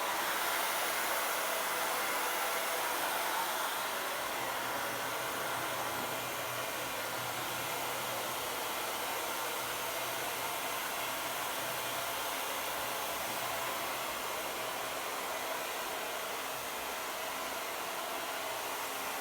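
Electric hot-air blower running steadily, heating a dried-out refrigerator door gasket to soften the rubber so it reseals.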